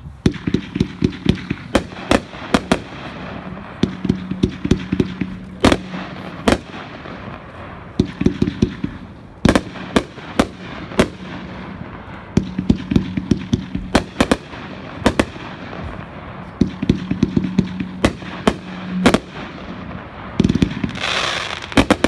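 A 500-gram consumer fireworks cake, Jacked Up, firing. It gives a long string of sharp launch thumps and bursts in repeating volleys, with a hissing swell near the end.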